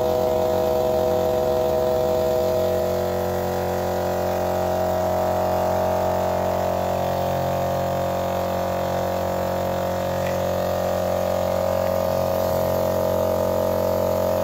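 Air compressor running steadily, feeding a spray gun used to spray finish: a continuous drone of several held tones that eases slightly about three seconds in.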